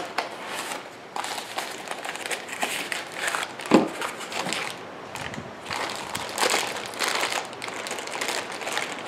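Brown paper and clear plastic packaging crinkling and rustling as it is handled and pulled off a toy's parts, with one knock a little under four seconds in.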